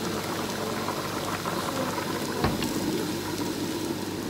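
A pot of water boiling with noodles in it: a steady bubbling hiss. One short knock sounds about halfway through.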